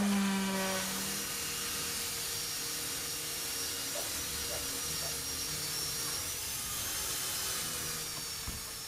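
Corded electric random orbital sander running steadily, sanding hardened ABS repair compound over a crack in a camper's ABS ceiling panel. A deeper hum drops away about a second in, and the sound fades near the end.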